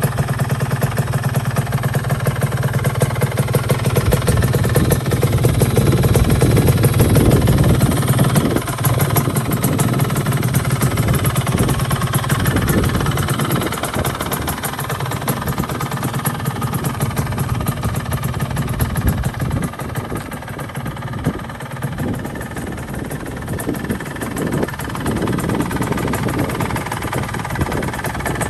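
Yamaha RXZ 135's single-cylinder two-stroke engine running with a rapid, fine-grained firing pulse. It gets louder over the first several seconds, eases to a lower, steadier idle about two-thirds of the way through, and picks up again near the end.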